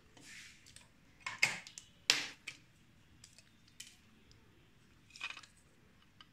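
Scattered clicks and knocks of a hand grinder and small tools being handled as it is opened up for work, with a short soft rustle near the start; the motor is not running.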